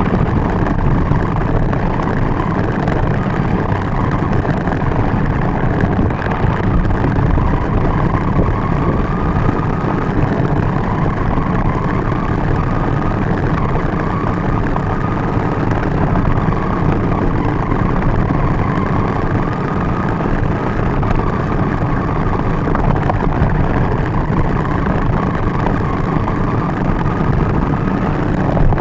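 Battery-powered RC car driving over asphalt with the microphone riding on it: a loud, steady rumble of tyres and drivetrain with a faint electric motor whine.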